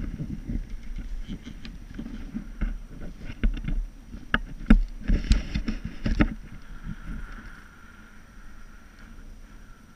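Wind buffeting the microphone on a moving chairlift, with a run of sharp knocks and clatters in the middle; it grows quieter for the last few seconds.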